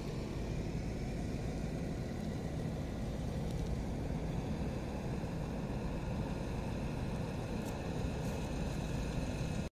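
Steady rumble of road traffic and idling trucks, heard from beside an expressway parking area.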